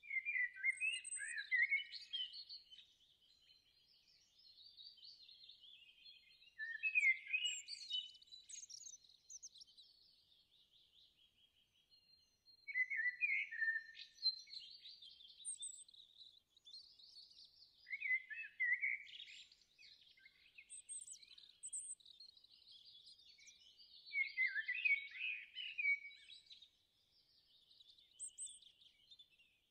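Small songbirds chirping and twittering, with louder bursts of song every five or six seconds and softer twittering in between.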